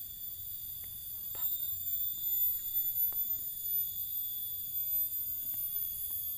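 Steady high-pitched chorus of forest insects, several shrill tones held at once without a break, with a few faint short ticks near the ground.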